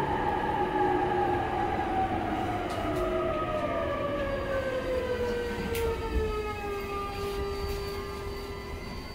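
Electric commuter train braking into a station, heard from inside the car: the traction motor whine falls steadily in pitch and settles into a steady tone near the end, over the rumble of the wheels on the rails.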